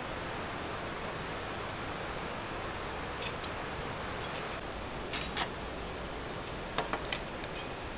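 Spoons clinking and scraping against stainless-steel bowls and plates a few times, the sharpest clinks about five and seven seconds in, over a steady background hiss.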